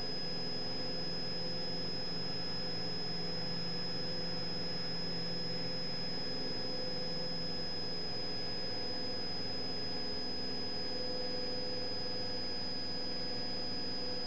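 Cessna 172's engine running steadily at climb power: a low, even hum with a steady high-pitched whine over it.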